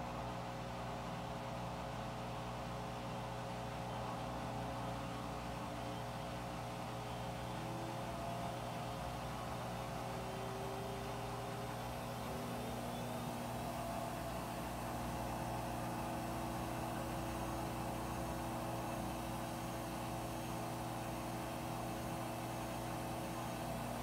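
Front-loading washing machine spinning its drum: a steady motor hum with whining tones that slowly rise in pitch as it ramps up toward its maximum-speed spin, the clothes having just been rebalanced.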